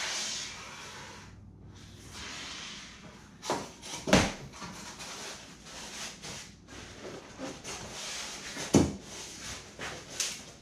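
A spray hiss that cuts off about a second in, then scattered knocks and clicks of tools and materials being handled on a foam-and-plywood boat, the two sharpest knocks about four and nine seconds in.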